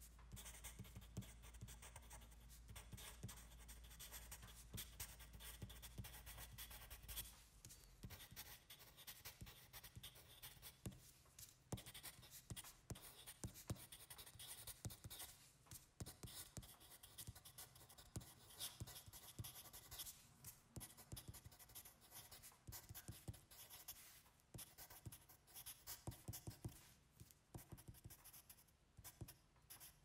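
Handwriting on paper, the writing tip scratching in quick, irregular strokes. A faint low hum underneath stops about a quarter of the way in.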